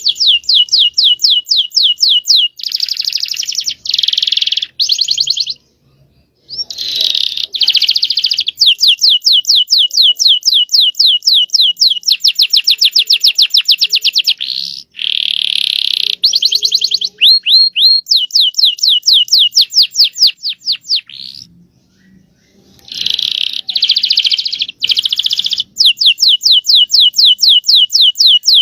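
Domestic canary singing long, rapid trills of fast repeated high notes, broken by two short pauses, a few seconds in and again about two-thirds of the way through.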